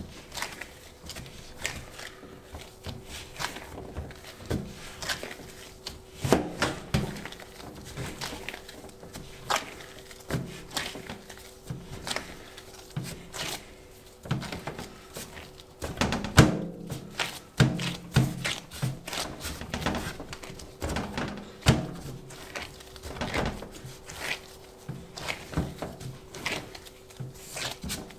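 Bread dough being kneaded by hand in rubber gloves on a work surface: irregular soft thumps and slaps, with louder runs of them about six seconds in and again around the middle.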